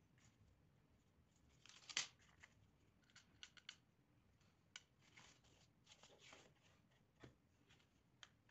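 Faint clicks and light scraping rustles of wooden popsicle sticks and other small craft pieces being handled and set down on a work mat. One sharp click about two seconds in is the loudest, with a quick run of ticks about a second later.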